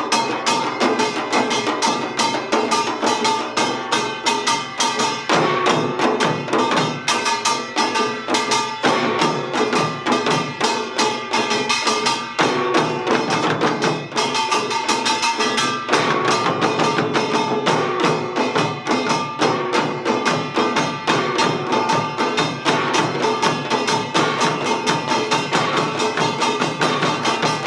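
Samul nori percussion quartet of kkwaenggwari small gong, jing large gong, janggu hourglass drums and buk barrel drums playing Utdari rhythms without a break. The kkwaenggwari's bright ringing strokes ride over fast, dense drumming.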